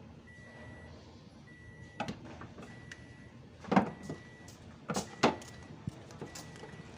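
A few sharp knocks and clatters, the loudest about halfway through and another pair about two-thirds in, over a faint high beep that repeats about once a second.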